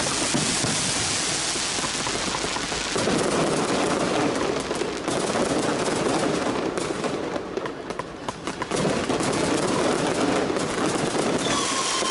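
Strings of firecrackers going off in a dense, rapid crackle that thins briefly about two-thirds through, then picks up again. Near the end a falling whistle-like tone joins in.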